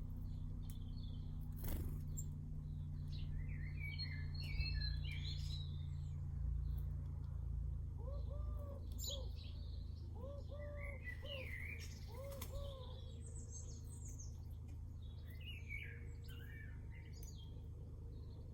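Small garden birds chirping and twittering on and off. About halfway through, a lower call of arched notes comes in three short phrases, over a steady low hum.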